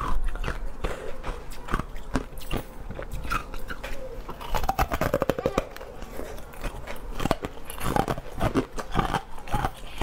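Close-miked biting and crunching of a piece of coloured ice, with crisp cracks and chewing throughout and a fast run of crunches about halfway through.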